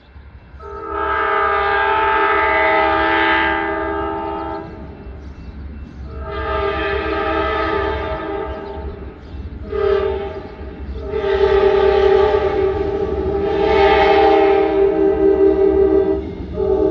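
Amtrak diesel locomotive's air horn sounding a multi-note chord in the grade-crossing pattern: two long blasts, a short one and a long one, with another long blast starting at the end. The horn grows louder as the train approaches.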